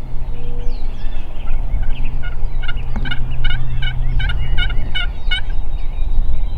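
Wild turkey yelping: a run of about eight evenly spaced notes, roughly three a second, starting a little over two seconds in and ending near the last second.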